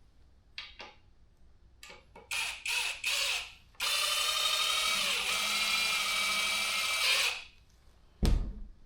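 Cordless drill driving screws, run in three short bursts and then one steady run of about three and a half seconds, followed by a sharp knock near the end.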